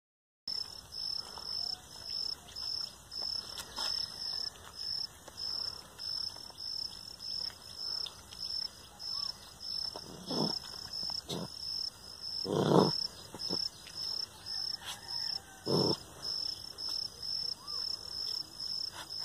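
A puppy gives a few short growls at its own reflection in a mirror, the loudest about two-thirds of the way through. Behind it an insect chirps steadily, about twice a second.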